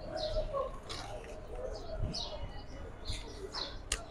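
Small birds chirping repeatedly in short calls, with one sharp click near the end while a telescopic hiking stick is being adjusted.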